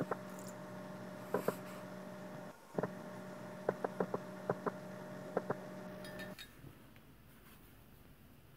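A steady low electrical hum with irregular light clicks and clinks, about a dozen in the first six seconds. The hum and clicks stop about six seconds in, leaving faint room tone.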